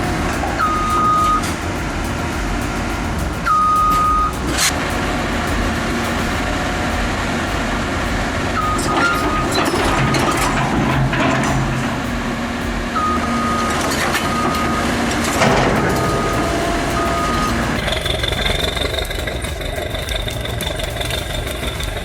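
Heavy machine's diesel engine running under load, with a reversing alarm giving short beeps in spells, two to five in a row, through most of the stretch. Near the end a thin, steady high tone comes in over the engine.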